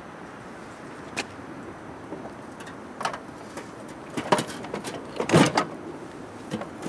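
Scattered metal knocks and clunks from a snowblower's sheet-metal frame as its rear engine half is tilted away from the front auger housing. The loudest burst of clunks comes about five seconds in.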